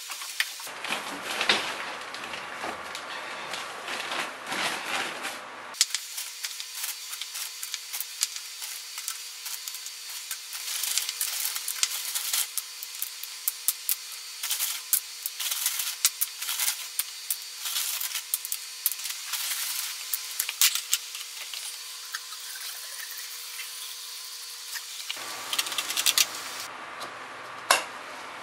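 Hand work with tools on a hard material: repeated scraping and rubbing, dotted with sharp clicks and knocks, in several stretches that cut in and out abruptly.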